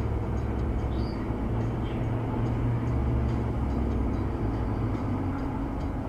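Steady low road and engine rumble inside the cabin of a car cruising on a highway.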